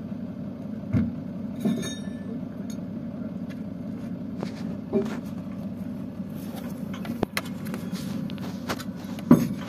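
Crane truck's engine idling steadily to drive its loader crane, with several sharp metallic clanks and a short jingle as the crane hook and chains are handled on the concrete rings.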